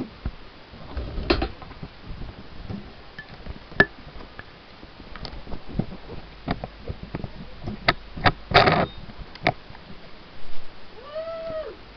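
Handling noise from a camera held close to cloth: scattered clicks, taps and two short rustles. Near the end, a short pitched sound that rises and falls.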